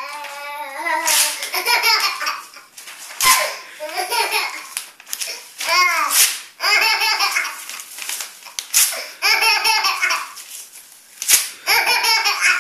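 Baby laughing in repeated fits, each set off by paper being torn in front of him; short rips of paper come about every two to three seconds, followed by bursts of giggling laughter.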